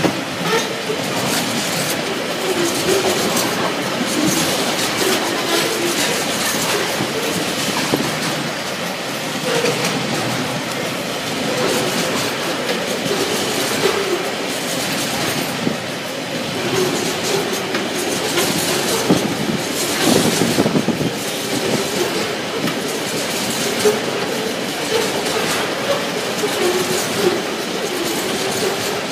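Loaded container flat wagons of a freight train rolling past close by, the wheels clattering steadily over the rails, with a wavering squeal from the wheels coming and going.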